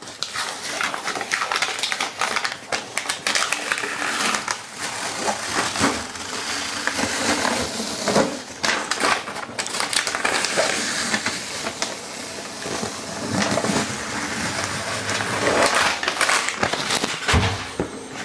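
Release paper being peeled off the back of a self-adhesive vinyl floor tile: a continuous rustling full of small clicks and crackles.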